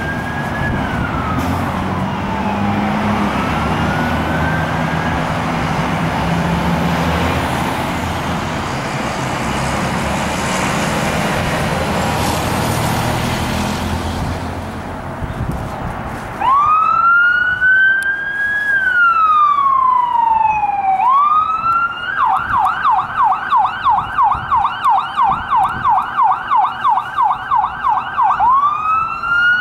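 A siren wailing, its pitch rising and falling slowly over a steady low rumble. About halfway through the rumble drops away, and the siren wails on clean, then switches to a fast yelp of about three rises a second before going back to a wail near the end.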